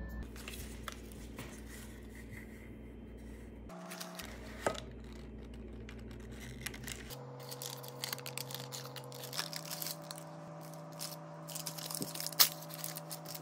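Parchment paper crinkling and rustling as it is handled and peeled away from a no-bake cheesecake, with scattered light taps and one sharp tap near the end. Soft background music with held chords plays underneath.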